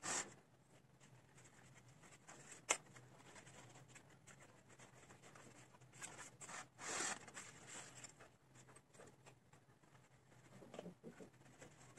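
Quiet scraping and rustling from handling a plant, its pot and potting soil during repotting, with a sharp tap about three seconds in and a longer scrape around seven seconds in.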